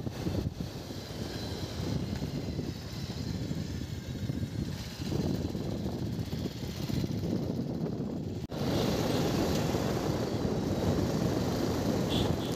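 Wind rushing over the microphone and the running of a motorcycle carrying a rider and pillion passenger. There is a brief dropout about eight seconds in, after which it is louder.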